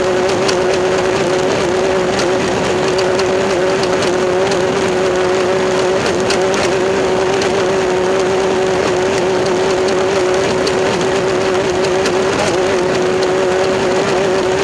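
An engine drones at a steady, unchanging pitch under a loud wash of noise, with scattered faint clicks.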